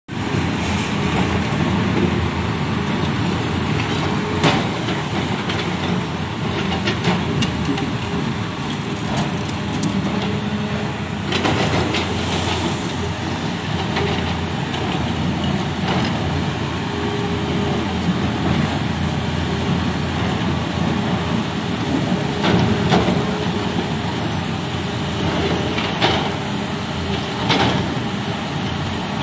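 Excavator's diesel engine running steadily under load, with a handful of sharp knocks spread through it.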